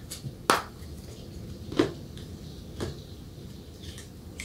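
Three soft clicks about a second apart from a deck of tarot cards being handled on a wooden table.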